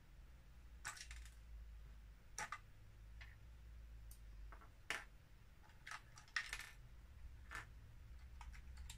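Plastic Lego pieces of a built Grand Prix Truck clicking and tapping as the trailer is handled and worked open: about six faint, sharp clicks spread a second or more apart, over a faint low hum.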